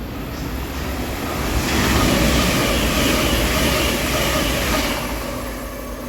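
A train passing the platform, its rushing noise swelling about two seconds in and dying away after about three seconds, over a steady low rumble.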